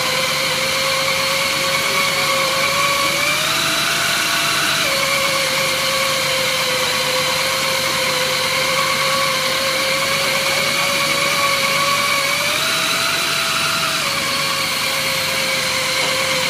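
ISF 610 plate edge beveling milling machine running with a steady high whine. Its pitch steps up briefly twice, about four and about thirteen seconds in, then settles back.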